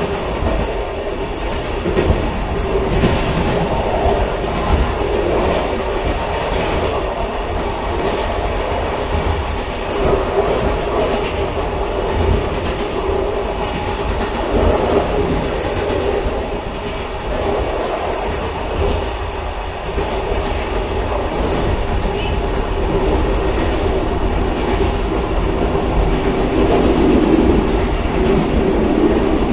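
Railcar running along the track: a steady rumble with a droning note that swells louder near the end.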